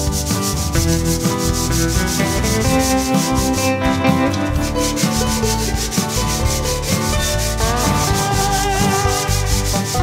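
Homemade three-string steel-body guitar, tuned G-G-B, strummed fast and evenly at several strokes a second, with the ringing notes shifting in pitch now and then.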